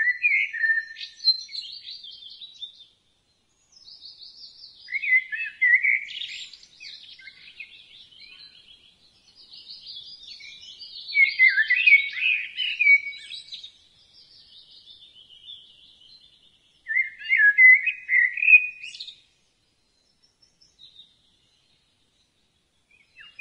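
Songbirds chirping and warbling in short phrases with pauses between them, going quiet for a few seconds near the end.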